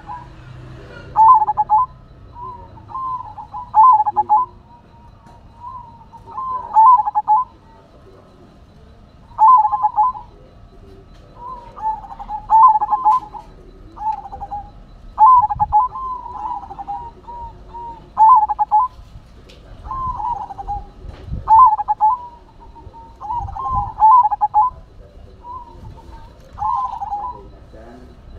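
Zebra dove (perkutut) cooing: repeated phrases of short, rapid rolling coos, a new phrase every second or two.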